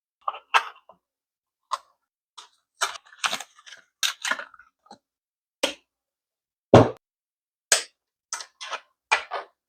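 Irregular sharp clicks and clacks of metal ratchets being handled, picked up and set down, with one heavier knock about two-thirds of the way through.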